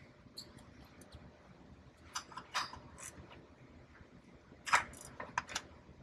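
Faint scattered clicks and light taps of a horn and a wrench being handled, a few about two to three seconds in and a louder cluster near five seconds.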